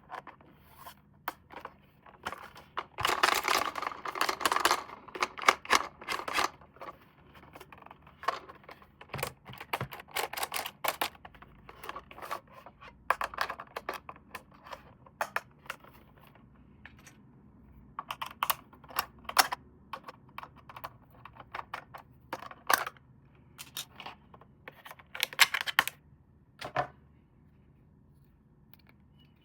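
Hands handling a plastic toy car and its packaging: an irregular run of small clicks and taps, with a longer burst of rustling about three seconds in.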